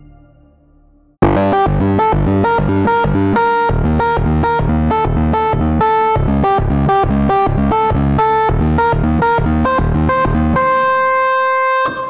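Spectrasonics Omnisphere 'Solid Tine Lead' patch, built on a Vintage Vibe tine electric-piano sample, played from a keyboard. It starts suddenly about a second in with an even run of notes over a bass part, about three a second, then ends on a held note that rings out.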